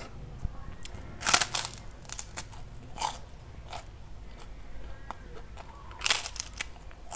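Large white kerupuk cracker being bitten and chewed: a loud crisp crunch about a second in and another about six seconds in, with smaller chewing crunches between.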